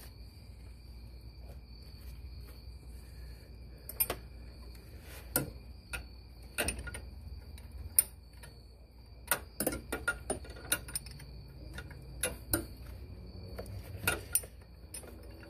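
Irregular sharp clicks and taps of metal brake-line fittings and the ABS hydraulic unit being handled by gloved hands, about a dozen scattered clicks. A faint steady high-pitched tone runs behind them.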